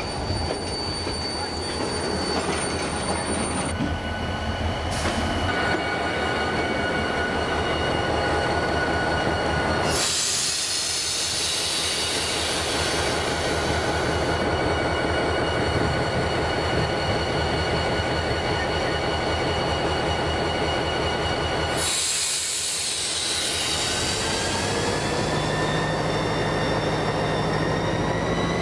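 Long freight train's wagons rolling past, steel wheels squealing against the rails over a steady rumble, with several high squeal tones held throughout. Near the end a rising whine and a lower hum join in.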